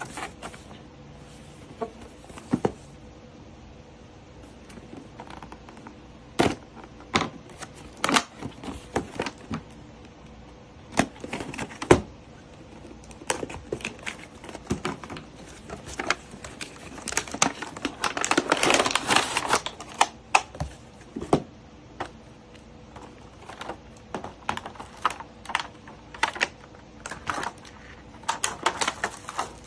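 Irregular plastic clicks and knocks from handling a toy RC stunt car and its accessories, with a stretch of rustling about two-thirds of the way through.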